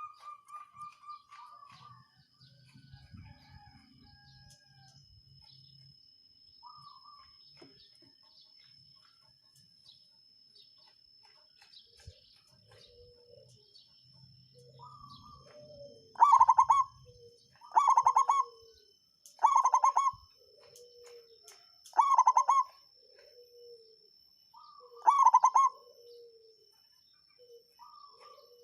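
A zebra dove (perkutut) singing its song. After a quieter first half with scattered faint calls, it repeats its phrase about every two to three seconds: a fast stuttering run of notes followed by lower coos.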